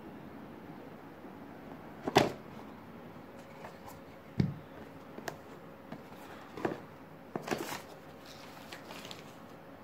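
A cardboard smartphone retail box being opened by hand: the lid is lifted off and the two parts are set down, giving a few knocks and taps. The loudest knock comes about two seconds in, a dull thump a couple of seconds later, and lighter taps follow.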